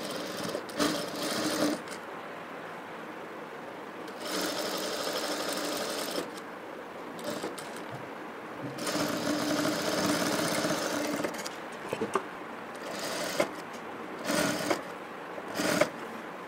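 Sewing machine stitching fabric in separate runs of one to a few seconds with pauses between, then a few short bursts near the end.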